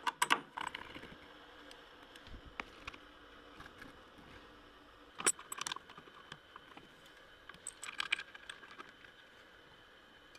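Small metallic clinks and rattles of metal parts or tools being handled, in three short clusters: at the start, about halfway, and about three-quarters through. A faint steady hum runs beneath them.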